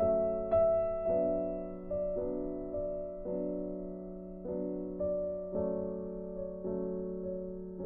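Background piano music: slow sustained notes, a new one struck about once a second and each fading slowly.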